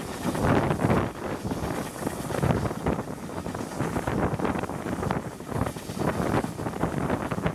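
Wind buffeting a microphone held out of the window of a moving railway carriage, with the running noise of the train beneath it, swelling and easing in gusts.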